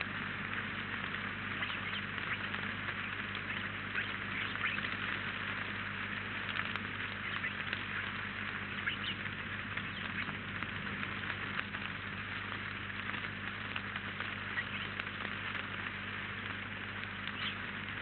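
Graupel (snow pellets) falling steadily and pattering as dense fine ticking on the logs, leaves and feeders, with a steady low hum underneath.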